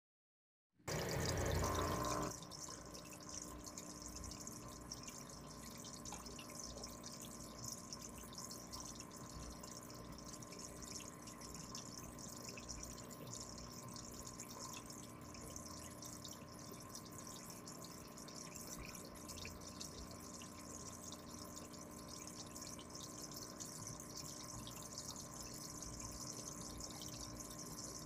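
Aquarium water bubbling and trickling from air stones, a steady hiss with a faint steady hum under it. It starts about a second in with a brief louder burst of noise.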